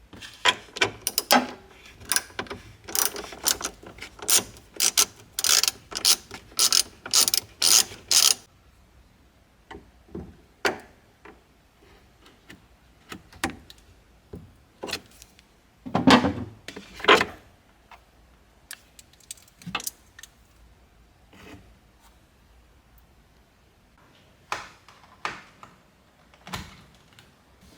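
Ratchet wrench clicking in an even run, about two or three strokes a second, as it works the nut on the negative battery terminal, stopping about eight seconds in. After that come scattered metal knocks and clunks, the loudest about sixteen seconds in.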